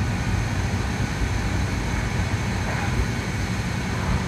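Steady roar of a glassblowing hot shop: the gas-fired glory hole burner and large floor fans running, with a deep rumble underneath and no change throughout.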